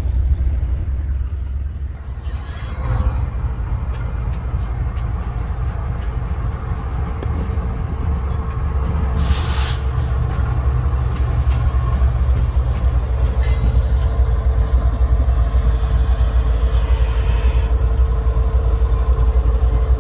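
Diesel-electric locomotive number 9055 running past close by, hauling its train of coaches: a deep, steady engine rumble that grows louder as it nears. A short hiss of air sounds about halfway through.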